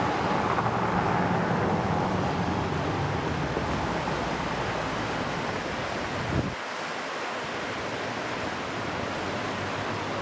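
Steady rushing of river water, with wind rumbling on the microphone; the low wind rumble drops away abruptly about six and a half seconds in, leaving the water noise.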